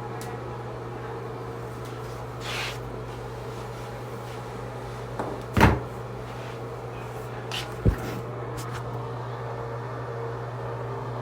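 Steady low hum with a few handling knocks: a soft rustle about two and a half seconds in, a sharp knock just past the middle, and a smaller knock about two seconds later.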